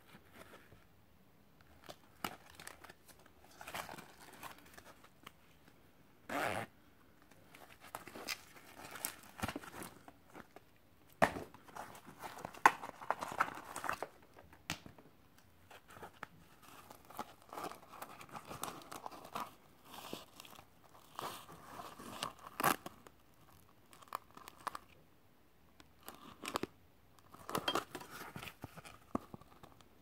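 Handling noise from a Cordura nylon pouch and its card hang tag: fabric rustling and brief rasps in bursts of a second or two, with scattered sharp clicks and short pauses.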